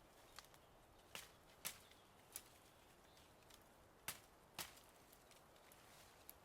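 A few sharp, short clicks or snaps, about five clear ones spaced irregularly, over a quiet background.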